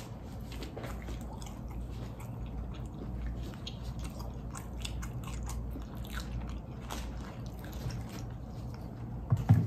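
Close-miked biting and chewing of a fried chicken sandwich: many small crisp clicks and mouth sounds, over a low steady hum.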